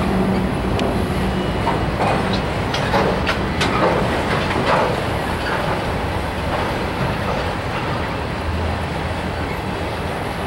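Train of autorack freight cars rolling past: a steady rumble of steel wheels on rail, with a run of sharp clicks in the first few seconds.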